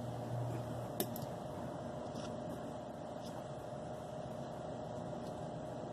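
A steady background hum, with a single small click about a second in as tiny hex screws are being driven back into the gearbox of a radio-control truck.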